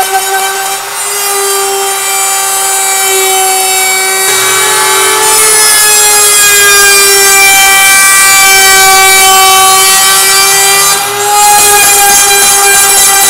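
Handheld router spinning a solid carbide spiral down-cut bit, a steady high-pitched whine whose pitch wavers slightly, as it cuts an opening out of a polycarbonate sheet.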